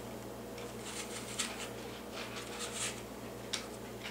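Palm peeler blade shaving the skin off an apple: a series of short, irregular, faint scraping strokes.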